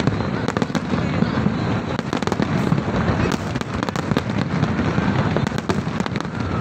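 Large fireworks display in a dense, continuous barrage: a steady rumble of shell bursts with many sharp cracks and crackles overlapping, without a pause.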